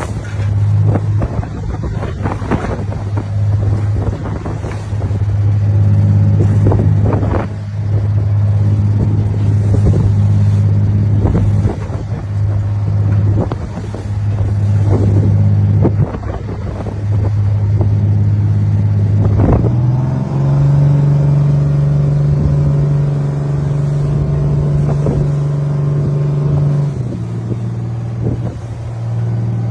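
Boat engine running steadily, its pitch stepping up to a higher speed about two-thirds of the way through and settling back down near the end, with scattered knocks and wind buffeting on the microphone.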